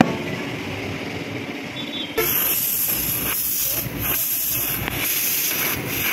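Compressed air hissing through a tyre inflator hose into a tubeless van tyre at the valve, starting about two seconds in and breaking off briefly a few times: the tyre is being inflated after fitting.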